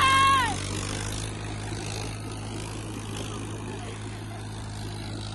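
Tractor engines running steadily under load as one tractor drags another. A loud, high held tone, like a shout or horn, cuts off about half a second in.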